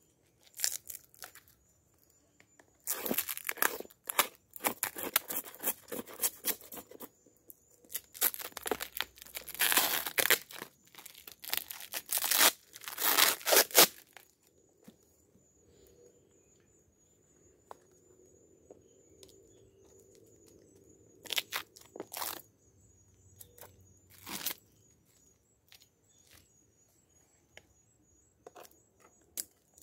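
Protective wrapping being torn and peeled off a white PVC-pipe bee bait by hand: bursts of tearing and crinkling through the first half, then only a few scattered clicks and rustles.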